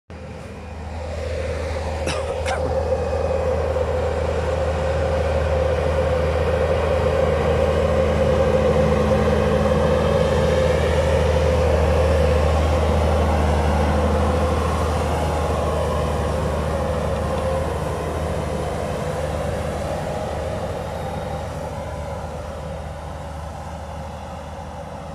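Tractor pulling a Väderstad seed drill through the field passes close by: a steady engine drone with the drill working the soil. It grows loud in the middle and fades as the rig moves away, with a brief clatter about two seconds in.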